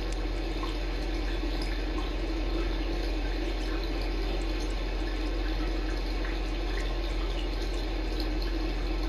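Steady hissing background noise with a constant low hum, and faint scattered clicks and smacks of a cat eating wet food.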